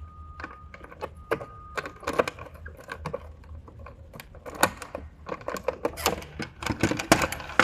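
A key jangling and clicking in the lock of a locked thermostat cover as it is unlocked and opened: a quick, irregular run of small clicks and rattles.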